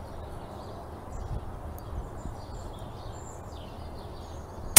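Quiet outdoor background with faint bird chirps, then right at the end a single sharp crack: a Falcon Prairie pre-charged pneumatic air rifle firing a pellet.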